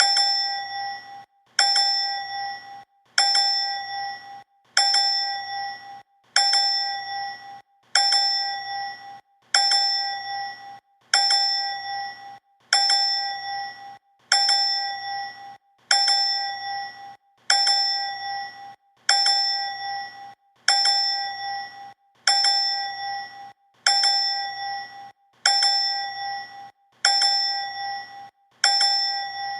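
A bright bell 'ding' sound effect, struck over and over about every 1.7 seconds. Each strike rings out with a clear tone and overtones and fades quickly before the next.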